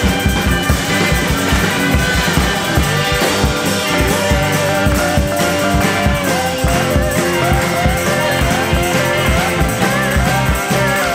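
Rock music with a steady drum beat under a melody line that holds one long note, then moves through short bending phrases.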